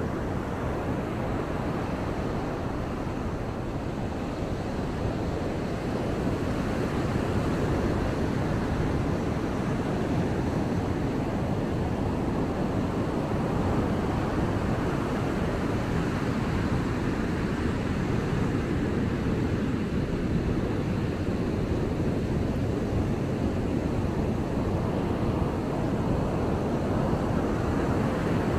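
Ocean surf breaking and washing up the beach, a steady rush that swells slightly about six seconds in.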